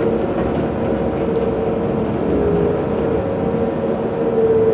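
Liebherr R9800 mining excavator's diesel engines and hydraulics running under load as the loaded bucket is moved, heard inside the operator's cab: a steady drone with a whine, swelling slightly near the end.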